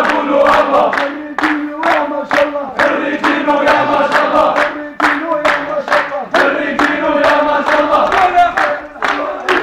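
A crowd of young men singing a celebratory zaffeh chant in unison, to a steady beat of hand claps.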